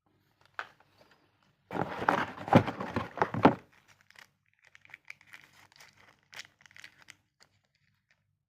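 Packaging being torn and crinkled open by hand: a loud burst of crackling and tearing for about two seconds, then softer, scattered rustling.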